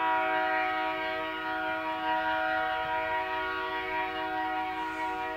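Diesel locomotive air horn sounding one long chord blast of several notes, starting abruptly and cut off near the end, as the locomotive approaches a grade crossing.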